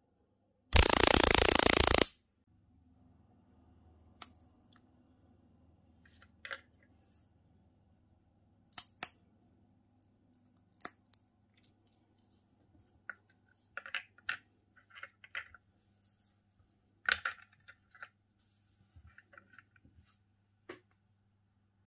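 About a second in, a loud electrical crackle of high-voltage arcing lasts about a second and a half, as the electric mouse trap's charged copper wires are shorted with metal tweezers. After it come a faint low hum and scattered small cracks and clicks as walnut shells are broken by hand and the pieces set down on the wooden trap floor.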